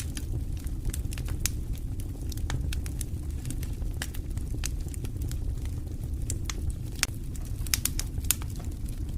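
Campfire burning: wood crackling with frequent irregular sharp pops, a few louder ones near the end, over a steady low rumble.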